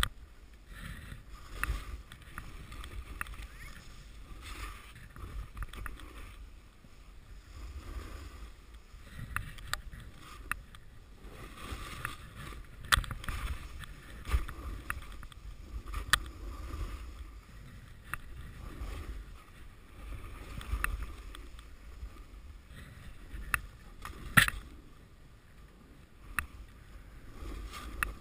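Snowboard sliding and turning through deep powder snow, a swishing hiss that swells and fades with each turn, over deep wind rumble on the microphone. A few sharp clicks cut through, the loudest about four-fifths of the way through.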